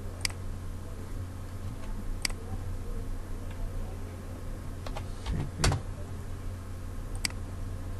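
Computer mouse clicks: single sharp clicks a couple of seconds apart, with a quick run of clicks and a heavier knock about five and a half seconds in, over a steady low hum.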